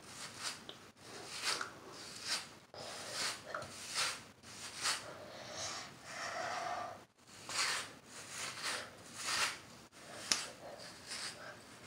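Hairbrush bristles dragged through oiled hair in repeated strokes: a series of short swishes, roughly one a second.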